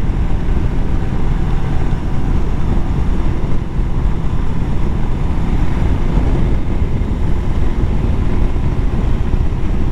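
Steady rush of wind and road noise from a Honda CB500X motorcycle cruising at motorway speed, with its parallel-twin engine running underneath.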